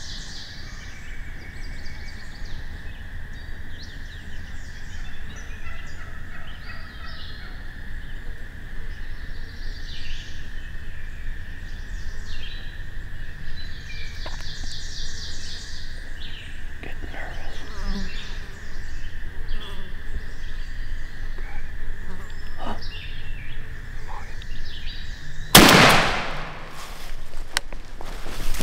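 Birds trilling over a steady faint high hum, then a single shotgun shot about 25 seconds in, by far the loudest sound, ringing out briefly.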